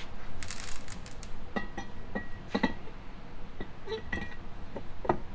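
Light metal clinks and knocks, a few of them ringing briefly, as an aluminium roots-type supercharger is handled and set down onto a V8 engine's intake manifold.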